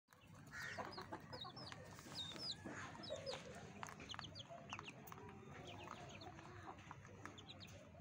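Young chicken peeping: short high-pitched chirps, several a second, with a few light taps mixed in.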